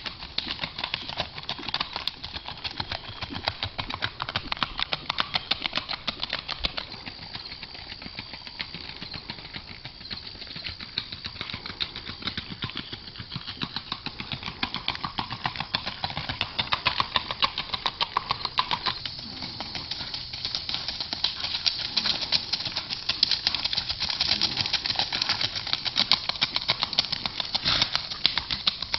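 Hoofbeats of a Tennessee Walking Horse gelding: a fast, continuous run of clip-clopping strikes that grows louder about halfway through.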